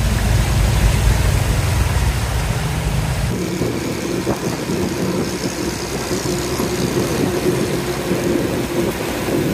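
Motor vehicle engine running steadily while moving along a road. About three seconds in the sound changes abruptly from a deep rumble to a steadier, higher hum.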